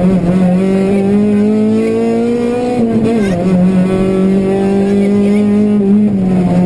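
Honda Civic Type-R rally car's 2.0-litre four-cylinder engine, heard from inside the cabin, pulling hard at speed. Its revs climb slowly for almost three seconds, drop sharply about three seconds in, then hold steady.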